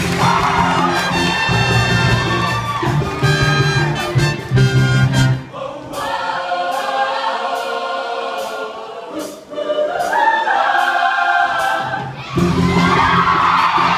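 Show choir singing with a live band that includes horns. About five and a half seconds in the bass and band drop away, leaving the voices over light percussion hits, and the full band comes back in near the end.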